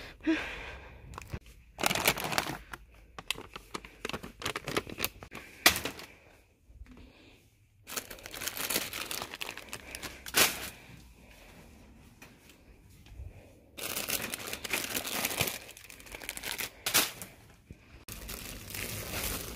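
Plastic snack packets crinkling in irregular bursts as they are handled and put into a wire shopping cart, with a few sharper knocks.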